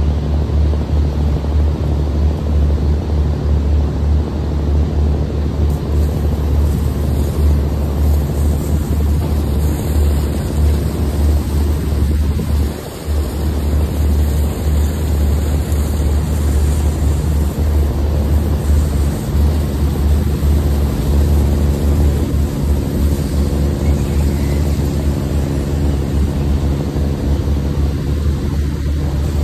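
Heavy engine running steadily at a constant speed, a loud deep hum with a brief drop about 13 seconds in.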